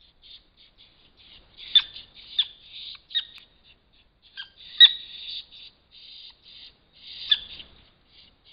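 Fishers calling during a scuffle: a string of short, high, harsh calls, with about five sharper screeches standing out above the rest.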